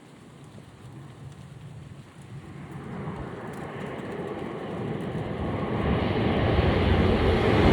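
E956 ALFA-X Shinkansen test train approaching at speed: a rushing roar that grows steadily louder throughout.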